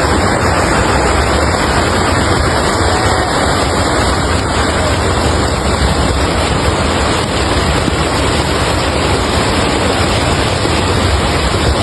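Swollen floodwater rushing steadily, a loud unbroken noise with no breaks or separate impacts.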